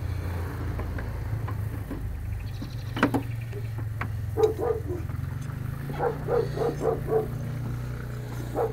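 A dog barking in short quick yaps: a couple about halfway through, then a run of about five close together, over a steady low hum.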